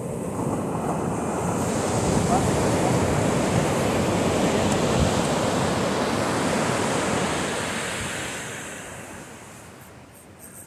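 Ocean surf: a wave breaking and washing up the beach, swelling over the first couple of seconds, holding, then fading away over the last few seconds.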